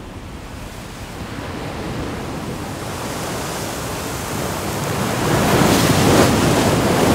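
Sea surf breaking over a rocky shore, a steady rush that swells louder and peaks with a wave crashing about six seconds in.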